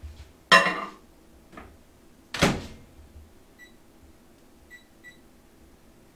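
Over-the-range microwave oven: two loud clunks as a bowl is set inside and the door is shut, then three short keypad beeps at the same pitch as the cooking time is entered.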